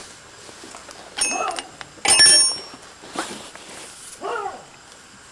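A chicken calling several times in short, separate squawks, the loudest and shrillest about two seconds in.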